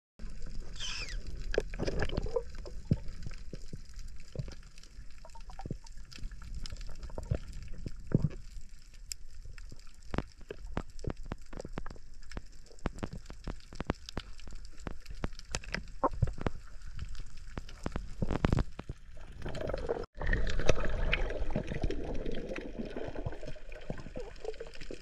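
Underwater sound picked up by a diving camera: a muffled low rumble of moving water with many sharp, irregular clicks and crackles. After a cut near the end, a louder spell of rushing water noise.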